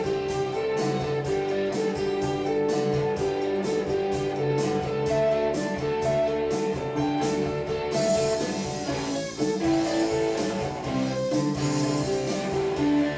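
Guitar playing a picked run of single notes in a repeating pattern at a steady beat.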